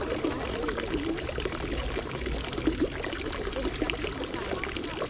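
Water running and splashing steadily, like a trickling outdoor fountain, with faint voices in the background.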